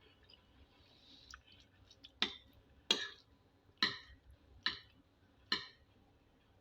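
Eating utensil clinking against a dish five times, a little under a second apart, each a short sharp hit with a brief ring.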